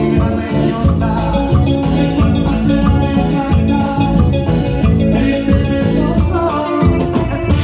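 Loud music with a steady beat and sustained instrumental notes, Latin American in style.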